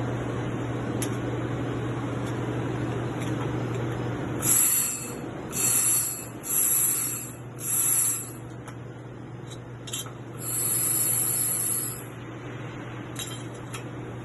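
A 1200 W air-cooled welding machine hums steadily while welding 2 mm aluminium plate. From about four seconds in come four short bursts of sharp hissing, then one longer burst, with a few faint ticks between them.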